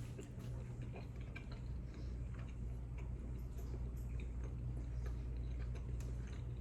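A man chewing a mouthful of chicken Alfredo pasta with spinach, small wet clicks and smacks of the mouth, over a steady low hum.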